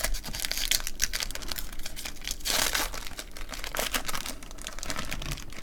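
Plastic wrapper of a trading-card pack crinkling and tearing as it is opened: a run of quick crackles, with a louder stretch about halfway through.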